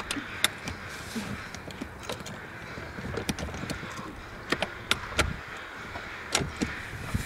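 Irregular sharp clicks and knocks, about eight of them scattered over several seconds, over a low steady background: the sound of gear being handled.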